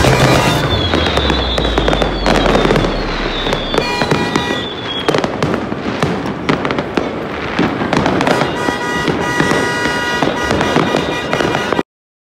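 New Year's Eve fireworks crackling and banging continuously. In the first few seconds several whistling rockets glide down in pitch. The sound cuts off abruptly near the end.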